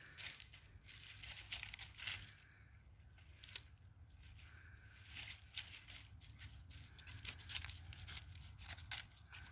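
Faint, scattered crackling and rustling close to the microphone, over a steady low rumble.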